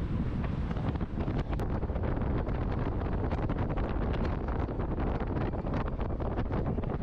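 Wind buffeting the microphone: a steady low rumble, with many short crackles from about a second and a half in.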